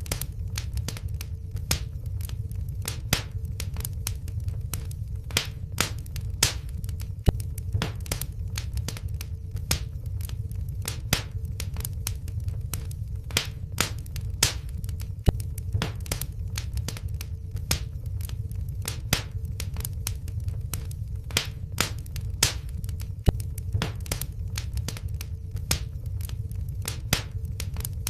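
Wood fire in a fireplace crackling: irregular sharp pops and snaps, several a second, over a low steady rumble.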